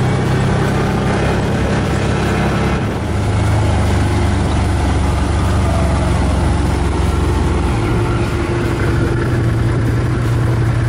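ATV engine running steadily while riding over a gravel trail. The engine note drops about three seconds in and climbs back up near the end.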